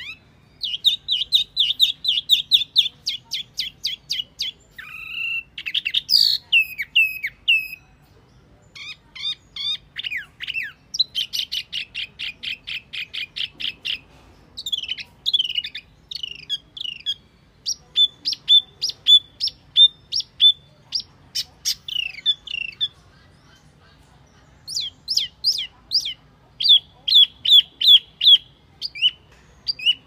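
Recorded song of a wambi mini bird, played as a lure call for wild birds: rapid trills of short, sharp high notes in bursts of one to three seconds, with brief pauses between them.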